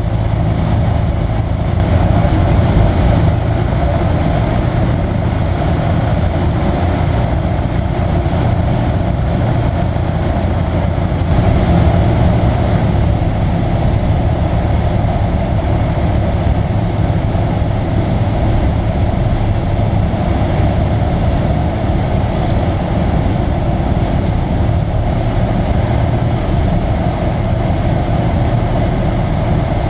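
Piper J-3 Cub's propeller engine running steadily in cruise flight, a constant drone mixed with propeller and wind noise, heard from inside the cockpit.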